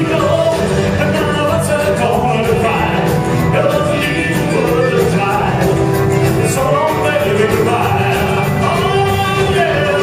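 Live rockabilly band playing a song, a man singing over upright bass, guitar, drums and piano.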